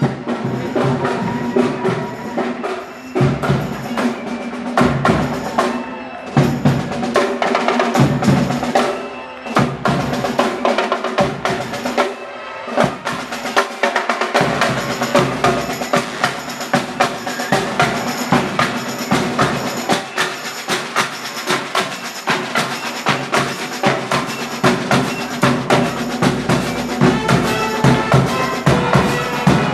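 Street band playing drum-heavy music. The drums are uneven at first and settle into a dense, steady beat about halfway through.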